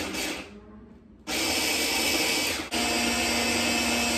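Stick blender with a chopper-bowl attachment grinding roasted peanuts into peanut butter. A short pulse comes first, then a pause, then the motor runs steadily from about a second in, with a brief break partway through.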